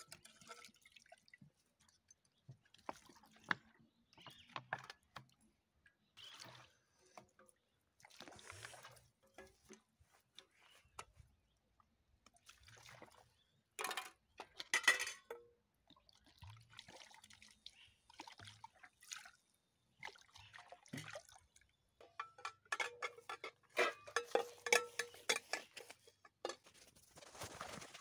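Water poured from a plastic bottle splashing and dripping onto metal pots and plates being rinsed, in short, repeated pours with light clinks of metal. A busier stretch of clatter comes near the end.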